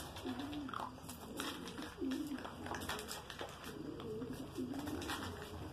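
Birds calling: a run of low, wavering calls repeating about once a second, with short sharp chirps scattered between them.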